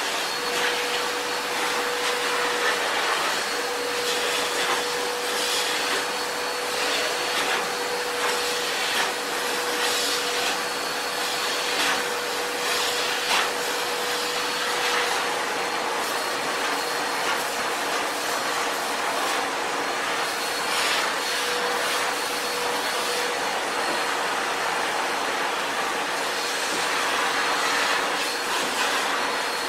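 Sebo Felix vacuum cleaner running steadily below full power, drawing air through its hose and dusting brush, with a constant motor whine. Occasional brief knocks and rubs come from the brush working over surfaces.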